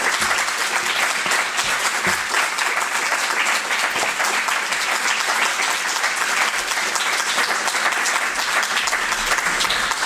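Audience applauding steadily: the dense clatter of many hands clapping at once.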